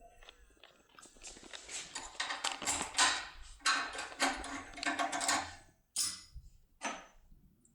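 Objects handled close to the microphone: a dense rustling and clicking for a few seconds, then two separate sharp clicks.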